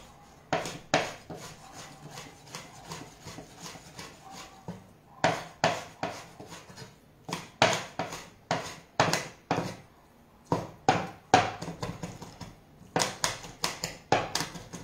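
Chef's knife chopping raw salmon on a wooden cutting board: quick runs of sharp knocks of the blade striking the board, with a lull of about three seconds after the first second.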